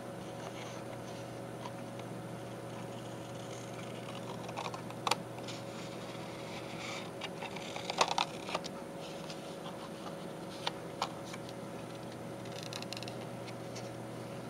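Scissors snipping through thick paper paint-sample cards: scattered crisp clicks and snips, the loudest cluster about eight seconds in, over a steady low hum.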